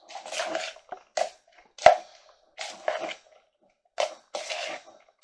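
A spoon stirring a wet pomegranate and cucumber mixture in a bowl, in short squelching strokes, with a sharp knock of the spoon against the bowl about two seconds in.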